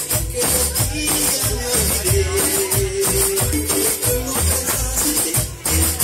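Latin dance music played loud over a party sound system, with a steady bass beat and quick, rhythmic high percussion.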